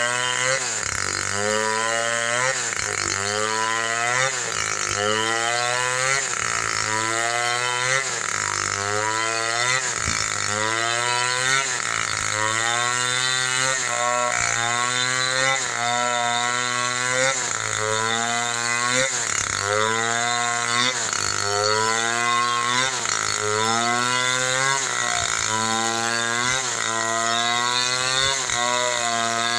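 Two-stroke chainsaw running under load as it cuts falcata wood, its engine pitch swinging up and back down about every two seconds.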